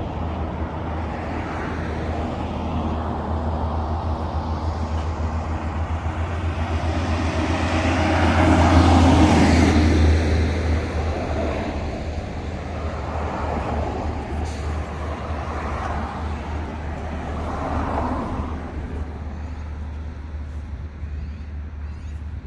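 Steady low rumble of a motor vehicle with road noise, swelling louder about nine seconds in and then easing off.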